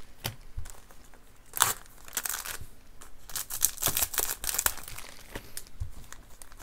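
Crinkling of foil Pokémon booster pack wrappers as a stack of packs is handled, with a few sharper crackles about a second and a half in and again about four seconds in.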